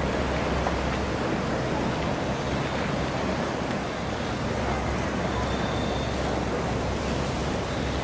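Steady wash of ocean surf breaking on the beach, with a low rumble of wind.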